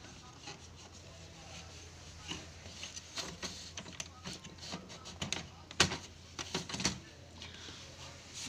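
Scattered clicks and knocks of hands handling the plastic parts inside an opened inkjet printer, the loudest about six seconds in, over a low steady hum.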